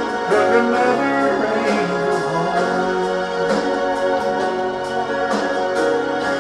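Instrumental outro of a country ballad backing track: held chords with horns over a steady soft beat, no singing.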